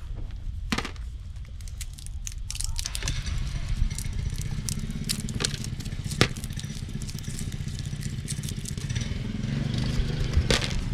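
Dried Blue Lake bush bean pods crackling and snapping as they are split open by hand, in scattered sharp clicks that thicken into steady crackling from about three seconds in, over a low rumble.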